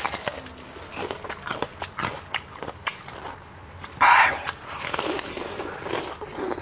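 A person eating close to the microphone: chewing and biting, with many small crunchy clicks and a louder breathy burst about four seconds in.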